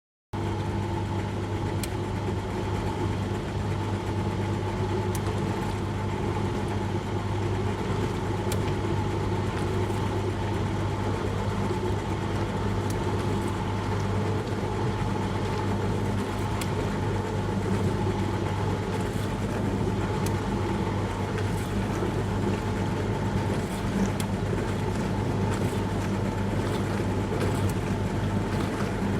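Dishwasher running mid-cycle: a steady motor hum under an even hiss of spraying water, with a few faint light clicks. It cuts in abruptly just after the start.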